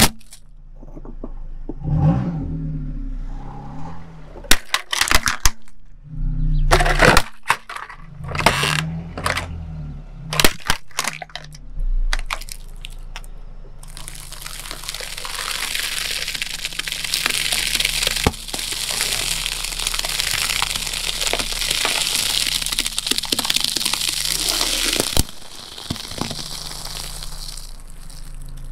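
Car tyre rolling over and crushing things: a run of separate sharp plastic cracks and snaps, then, about halfway through, a long, dense crackling and crinkling as the tyre slowly flattens a plastic bag of puffed snack balls, stopping short of the end.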